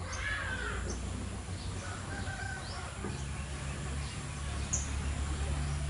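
Blue-crowned hanging parrots calling: short, high-pitched chirps about every second, over a steady low hum. A louder, lower bird call in the first second, which may be a chicken.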